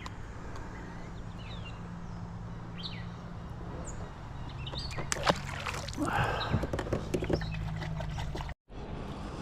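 Lakeside ambience: a steady low hum with a few short bird chirps. About six seconds in come water splashing and clicks, as of a fish being played at the bank.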